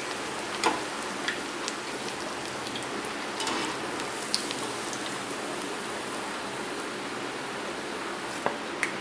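Kothimbir vadi pieces frying in hot oil in a kadhai: a steady sizzling, crackling hiss. A few sharp clicks of the steel slotted spoon against the pan come near the start and near the end as the pieces are lifted out.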